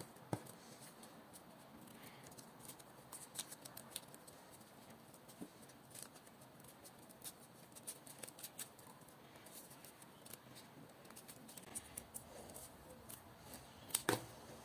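Small plastic-handled scissors snipping through several layers of folded paper: a scatter of faint, irregular snips, with a few louder snips near the end.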